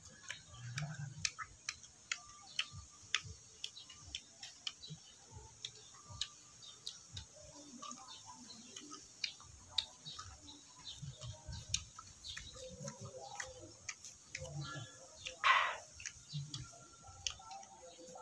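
Close-up eating sounds of a person eating tamarind by hand: many small mouth clicks, lip smacks and chewing noises, with a few soft low murmurs and one louder, longer mouth noise about fifteen and a half seconds in.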